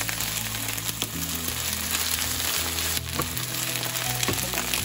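Chopped onion, garlic and ginger sizzling in hot olive oil in a nonstick skillet, with a wooden spatula stirring and spreading them through the pan.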